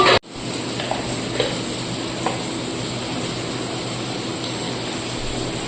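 Food frying in a pan with a steady sizzle, with a few light taps in the first couple of seconds. The sound drops out for a moment just after the start, at an edit.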